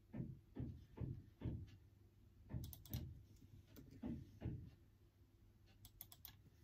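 Typing on a laptop keyboard, faint: soft thuds of heavier keystrokes, mostly in pairs, then a quick run of light key clicks about six seconds in.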